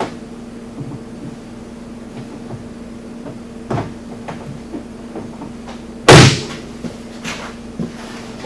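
Scattered light clicks and knocks as the plastic cargo box's mounting plungers are tightened by hand, with one loud clunk about six seconds in. A steady low hum runs underneath.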